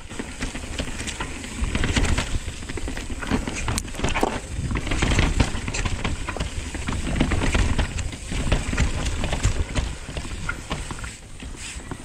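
Nukeproof Dissent 290 RS downhill mountain bike descending a rocky trail: tyres rolling and clattering over rock and dirt, with irregular knocks and rattles from the bike, over a steady rumble of wind on the microphone.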